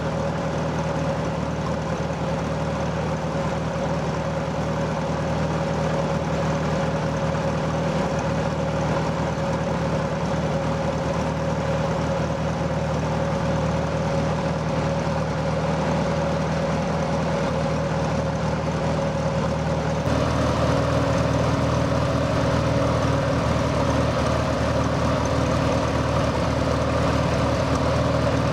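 Vintage tractor engine idling steadily. About twenty seconds in, the tone shifts and it gets slightly louder.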